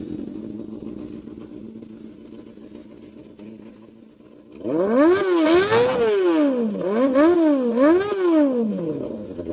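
Yamaha FZ250's single-cylinder engine through an SC Project CRT mesh exhaust, idling steadily, then revved three times from about four and a half seconds in, the pitch climbing and falling with each blip of the throttle.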